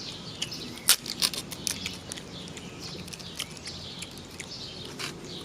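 Crinkling and sharp clicks of fast-food packaging being handled, with birds chirping faintly in the background.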